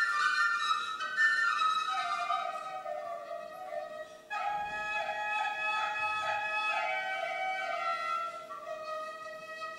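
Serbian wooden end-blown flute (frula) playing a solo folk melody. It starts on high notes, drops lower about two seconds in, plays quick trill-like ornaments in the middle and ends on held notes, over a faint steady low hum.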